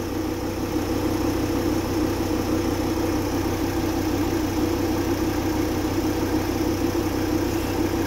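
2006 Volkswagen Crafter's 2.5-litre five-cylinder TDI diesel engine idling steadily at about 735 rpm.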